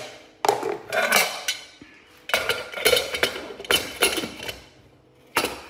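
Metal pressure cooker lid being fitted and closed onto the cooker: a series of metal clanks, knocks and scrapes in several separate bursts, the last a single sharp knock near the end.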